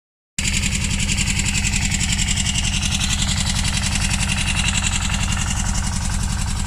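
Tractor diesel engine running steadily at low revs, with an even, rapid low throb.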